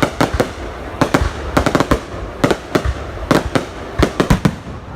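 High-altitude aerial fireworks shells bursting in a rapid, irregular string of sharp bangs, several a second, in clusters.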